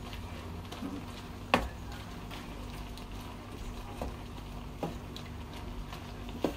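A wooden spatula stirring shrimp in a metal frying pan, knocking against the pan a few times, loudest about a second and a half in, over a faint steady sizzle and hum.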